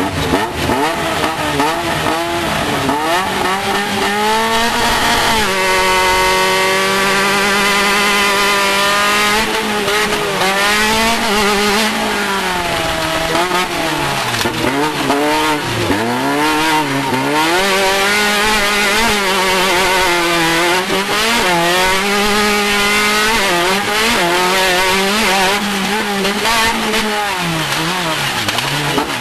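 Off-road race car engine at full race effort, its pitch climbing and falling again and again as the car speeds up and backs off.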